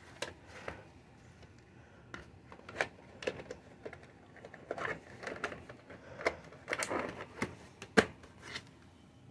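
A VHS tape and its plastic clamshell case being handled: a string of small plastic clicks and knocks, busiest in the second half, with one louder knock about eight seconds in.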